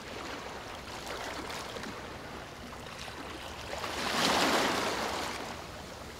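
Water lapping and sloshing around a sea otter floating on its back, swelling louder about four seconds in, with a few faint clicks.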